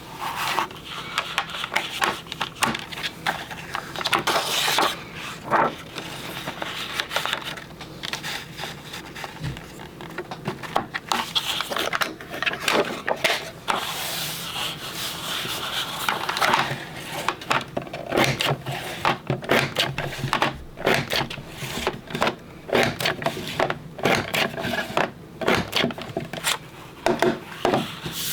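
Creative Memories Border Maker punch clacking again and again as it punches the edges of paper strips, with paper sliding and rubbing against the tool between punches.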